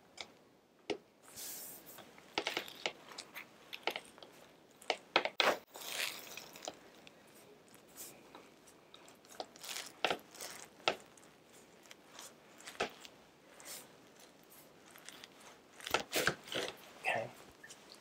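Hands pressing and rubbing over a cotton shirt on the upper back and neck: irregular rustling and crackling with scattered short, sharp clicks, the loudest cluster about five seconds in.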